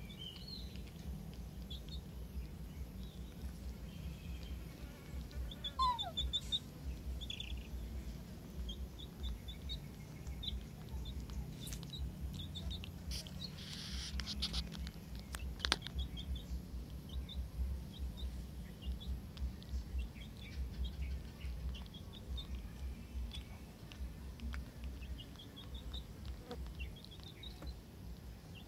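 Small birds chirping in quick runs of short high notes, over a steady low rumble. A single falling call sounds about six seconds in, and there is a brief rustle and a sharp tap about halfway through.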